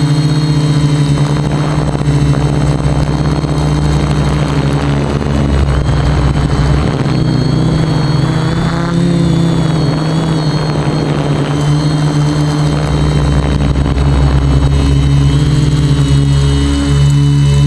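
Quadcopter electric motors and propellers buzzing steadily in flight. The pitch shifts slightly a few times as the throttle changes.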